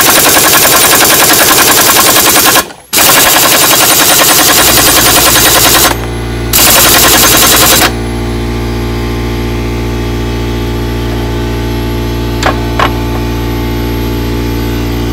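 A 3/4-inch pneumatic impact wrench hammering in three long bursts against a stuck cultivator hex shaft without breaking it loose. The owner suspects it is short of air through a too-small airline. An air compressor starts running steadily under the third burst and carries on alone once the wrench stops.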